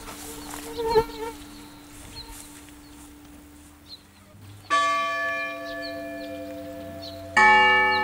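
Church bells rung by ropes in a belfry: a steady low hum, then one bell struck about two-thirds through and a deeper, louder bell struck near the end, each ringing on with a slow decay.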